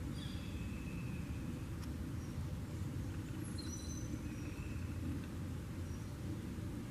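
Faint bird calls, a few short high whistles and chirps scattered through, over a steady low outdoor rumble.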